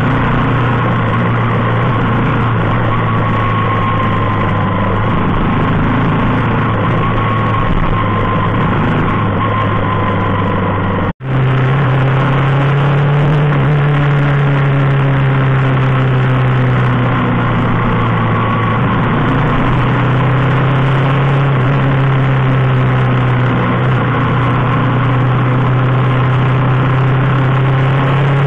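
Motorcycle engine running steadily at highway speed under throttle, with wind noise over it. The sound drops out for an instant about eleven seconds in; after that the engine note is a little higher and rises and falls gently with the throttle.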